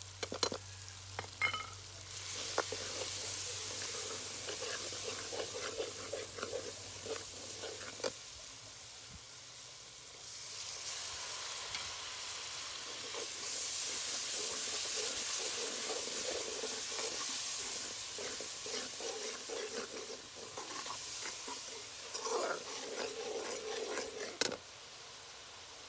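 Onion-tomato masala sizzling in hot oil in a wok as ground spices are tipped in and stirred with a steel ladle, the ladle scraping and knocking against the pan. The sizzle swells in the middle and cuts off suddenly near the end.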